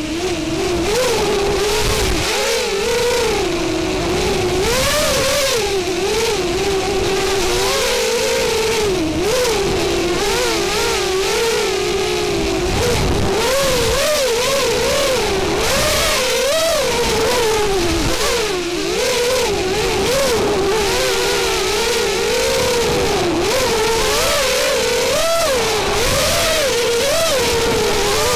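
Racing quadcopter's motors and propellers whining, close and loud, the pitch constantly rising and falling with the throttle as the drone flies the course.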